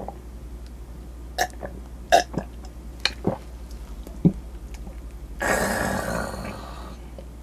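A man gulping a drink from a glass mug in several separate swallows. After the swallows comes a long, raspy sound from the throat lasting about a second and a half, burp-like, after drinking.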